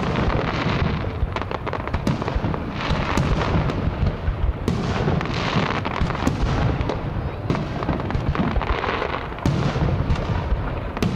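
Aerial fireworks shells bursting in a rapid, continuous barrage of bangs.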